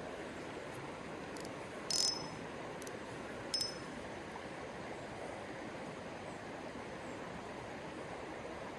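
Creek water flowing steadily, with a few short, high-pitched chirps or clicks, the loudest about two seconds in and another a little over three and a half seconds in.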